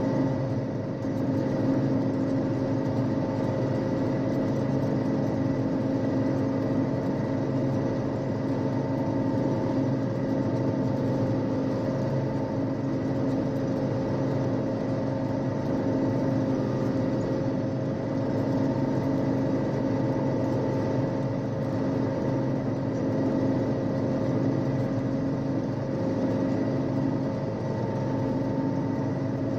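1974 John Deere 6600 combine running steadily while harvesting soybeans, heard from inside the cab: a constant drone of the engine and threshing machinery with a few steady held tones.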